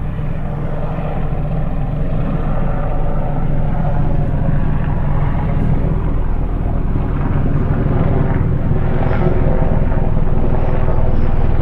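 Distant helicopter in flight: a steady low rotor drone that grows slightly louder toward the end.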